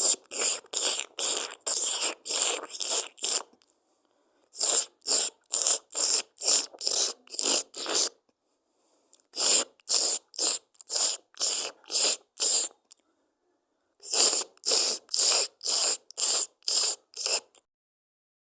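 Crisp crunching bites, about three a second, in four runs separated by short pauses: a cat chewing crunchy food.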